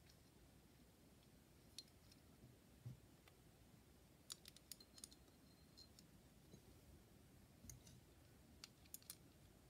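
Faint, scattered clicks of small metal bolts and nuts being handled and fitted into a metal electric skateboard motor mount, over near silence.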